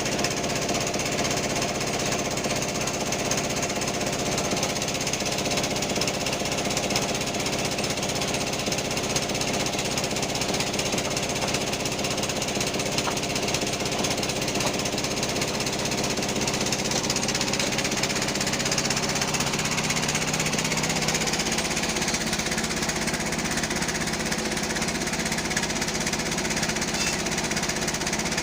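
Type 36 bandsaw running steadily with a rapid rattle while splitting teak, its low hum shifting about two-thirds of the way through.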